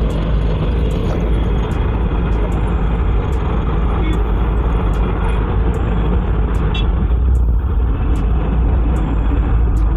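Eicher Pro 2095 CNG truck running, heard from inside its cab: a steady, deep engine rumble mixed with road noise.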